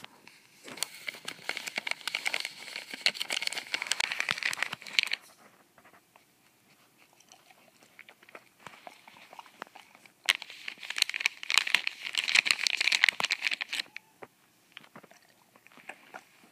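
Dog crunching dry food: two spells of rapid, crackly crunches a few seconds each, with a quieter gap of occasional clicks between them.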